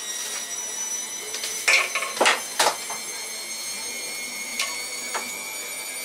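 Repaired Bosch washing machine running on test with a steady high whine, during a drain and spin run. Three loud knocks or clanks come close together about two seconds in.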